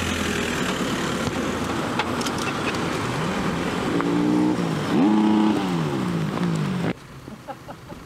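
A car being towed on a tow strap behind another car, with engine and tyre noise. In the second half an engine revs up, holds, drops, then revs up again and falls away slowly, and the sound cuts off abruptly near the end.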